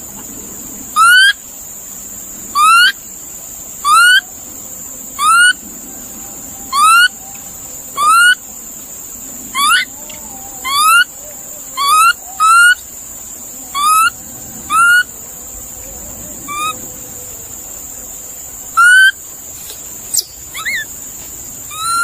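An animal or bird giving a series of about fifteen short calls, each rising in pitch, repeated roughly every second or so, with a longer pause near the end, over a steady high hiss.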